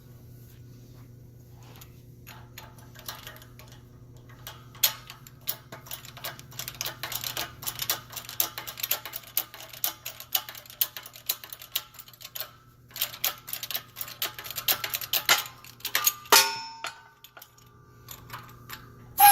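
12-ton shop press forcing a rubber differential mount bushing out of its cover: a long, uneven run of small quick clicks and creaks, then a sharp ringing ping about 16 seconds in, over a steady low hum.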